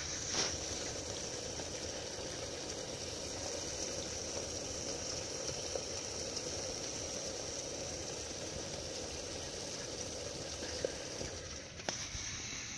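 Homemade wood-pellet wood-gas camp stove burning strongly: a steady rushing hiss with a few faint clicks.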